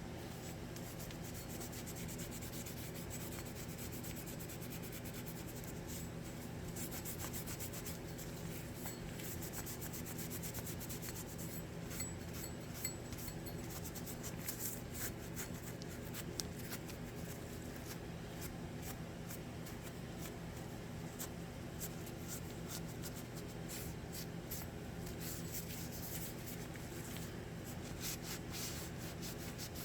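Rag rubbing and wiping over the acid-etched steel head of a Cold Steel Frontier tomahawk, cleaning it with acetone: a long run of short scratchy strokes over a steady low hum.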